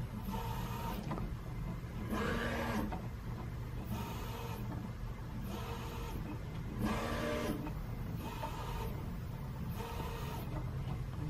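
Prusa i3 MK3S+ 3D printer's stepper motors whirring in short moves, one every second or two, over a steady low hum. The printer is stepping its probe from point to point across the bed in its automatic bed-leveling check before printing.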